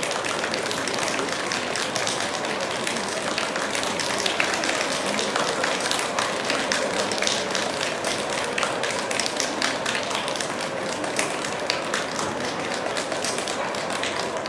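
Audience applause: many hands clapping steadily, a dense patter that holds at an even level throughout.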